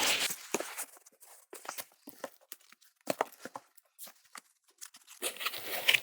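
Unpacking noises: scattered light clicks, knocks and rustles of packaging as a heavy router fence is pulled out of its shipping box, getting busier near the end.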